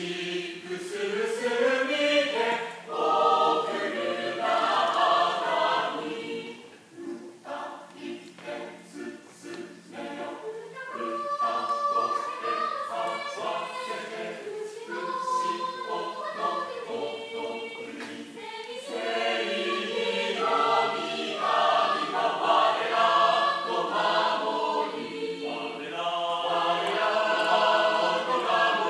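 Mixed choir of men's and women's voices singing a hymn in harmony. A softer passage of shorter notes comes about a quarter of the way in, then the full choir swells again.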